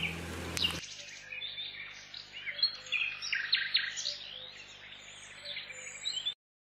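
Small birds chirping and twittering, many short high calls in quick succession, cutting off abruptly near the end.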